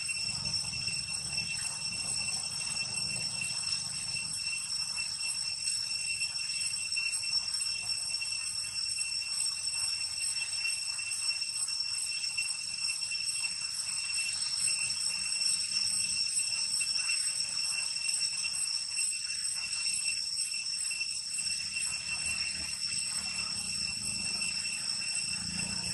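Steady, unbroken high-pitched insect drone in several even tones, typical of a cicada chorus.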